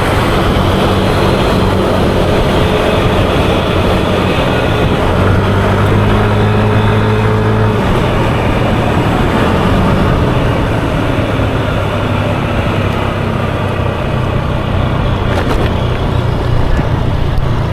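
Yamaha Aerox 155 scooter's single-cylinder engine running on the move, with wind and road noise rushing over the microphone. The engine note changes about eight seconds in.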